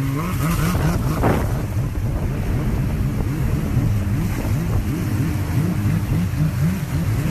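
Jet ski engine running at speed, its pitch rising and dropping again and again as the craft rides through choppy wake. Water rushes under the hull and wind buffets the microphone.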